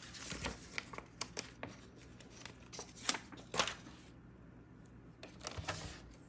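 Vinyl decal sheet and its backing being handled: crinkly rustling with scattered light ticks. This dies down about four seconds in, and there is one more short rustle near the end.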